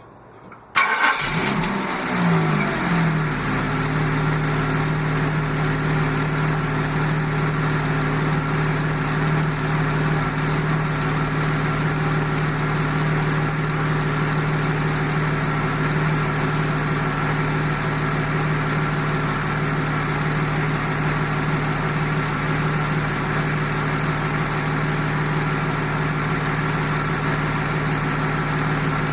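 Jaguar XJ6 X300 straight-six engine starting about a second in, flaring up and then dropping back to a steady idle. It idles with a misfire.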